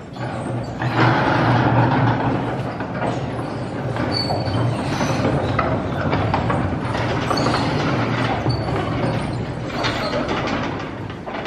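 A row of large brass prayer wheels being spun by hand one after another, rumbling and rattling as they turn on their spindles, with a few short high squeaks. The sound grows louder about a second in.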